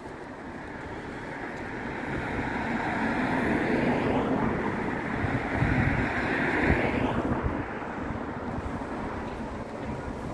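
A vehicle passing close by: its rushing noise swells over several seconds, then drops away sharply about seven seconds in. Wind gusts on the microphone throughout.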